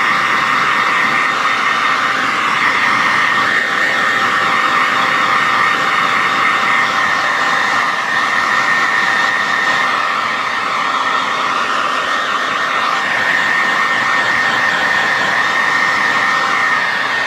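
Handheld hair dryer running steadily on its hot setting, a loud even rush of air with a thin high whine from its fan motor.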